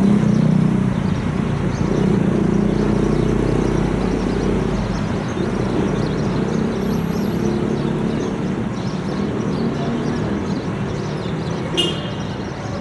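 Road traffic noise: a vehicle engine hums loudly at first and fades away over several seconds. A short sharp click with a brief high ring comes near the end.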